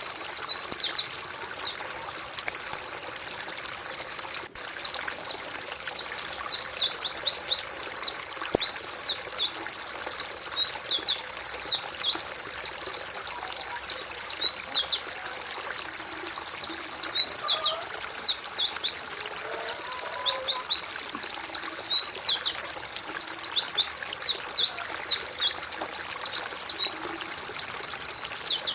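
White-eyes (pleci) chirping in a fast, dense stream of short, high, downward-sweeping notes that overlap one another.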